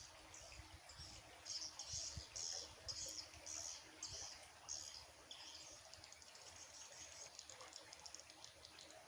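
Faint birds chirping: a string of short high chirps, about two a second, for the first five seconds, then only fainter twittering.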